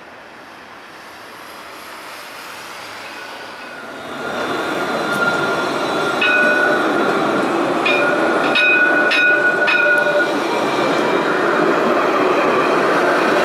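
Alstom Citadis 302 tram passing close by, its wheels running on the street-embedded rails, with high steady whining tones over the noise and a run of sharp clicks in the middle. The sound grows loud about four seconds in.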